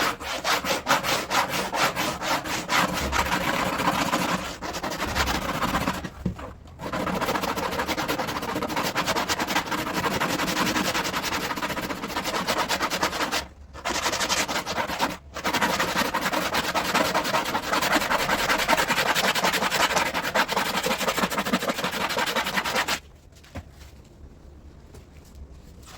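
Razor blade held flat and scraped in rapid strokes across the plastic seat-back panel, a steady rasping with a few short pauses that stops about three seconds before the end.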